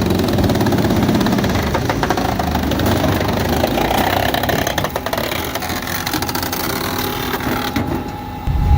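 Engine of a heavy wood-processing machine running steadily, with scattered sharp clicks and knocks. Near the end it cuts to a louder, deeper rumble.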